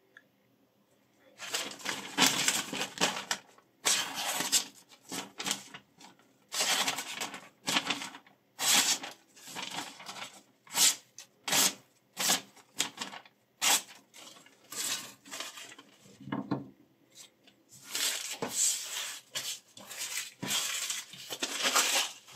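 Sheet of paper being sliced with a freshly sharpened kitchen knife as a sharpness test: a series of irregular rustling, cutting strokes through the paper, starting about a second in.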